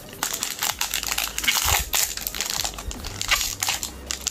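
Foil wrapper of a Pokémon booster pack crinkling as it is handled and opened, in quick irregular crackles.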